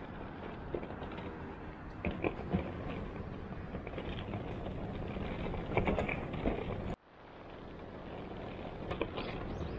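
Outdoor city street ambience: a steady hiss of distant traffic with a few light knocks. The sound cuts out about seven seconds in and fades back up.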